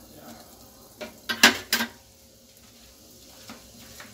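Stainless steel kitchenware clinking: a quick run of four sharp metallic clinks about a second in, then a couple of lighter ticks near the end, over the soft simmering of tomato soup in a steel pan.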